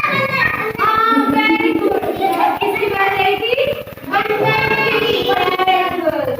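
A child's voice singing in long, drawn-out notes: two phrases of about three seconds each, the second falling in pitch at its end.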